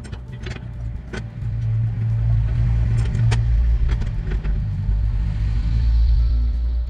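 Low engine rumble that swells about a second and a half in and holds steady, with a few light metal clicks near the start as the chop saw's vise clamp is worked by hand.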